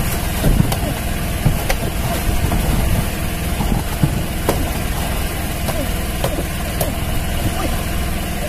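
Outrigger fishing boat's engine running steadily at idle, with scattered sharp knocks and splashing as a tuna is gaffed and pulled aboard.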